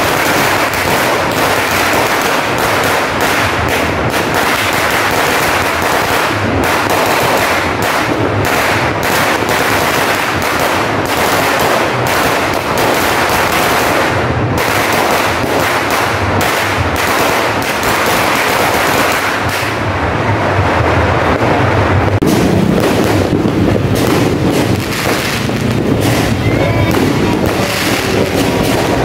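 A long Sinturon ni Hudas firecracker belt going off in an unbroken rapid crackle of bangs. From about two-thirds of the way through, deeper booms of aerial fireworks join in.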